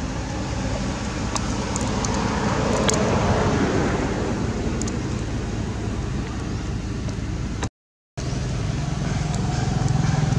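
Road traffic noise: a vehicle passes, swelling about three seconds in and fading. After a brief gap of silence near the end, a low engine hum grows louder.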